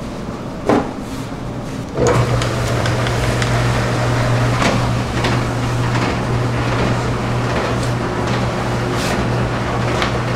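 A single sharp slap about a second in, as a sheet of dough is handled at a floured steel work table. From about two seconds in, a steady low machine hum runs under scattered light knocks and taps of dough and tools on the table.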